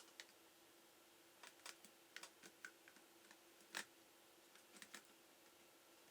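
Faint, irregular key presses on a laptop keyboard, about a dozen clicks at an uneven pace, the loudest a little under four seconds in.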